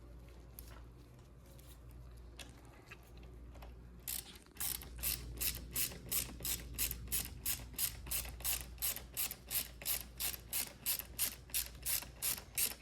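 Ratchet wrench clicking in a steady rhythm, about three clicks a second, while a brake hose banjo bolt is run in and tightened. It starts about four seconds in, after a few faint handling clicks.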